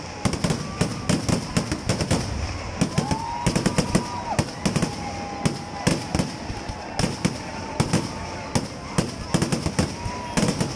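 Temple-festival fireworks (vedikettu) going off in a rapid, continuous run of sharp bangs and cracks, several a second. A few held whistling tones sound over the bangs.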